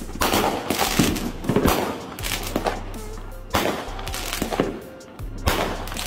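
Fireworks bursting overhead in about three volleys of pops and crackles, over background music with a steady low hum.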